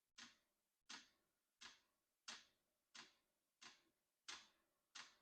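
Fuel dosing pump of a Vevor diesel air heater ticking steadily, about three sharp clicks every two seconds, each fading quickly, as it meters diesel to the burner during start-up.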